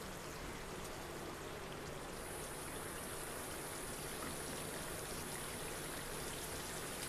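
Prawn curry sauce simmering gently over low heat: a steady, even bubbling and light sizzling of the oily gravy around the prawns.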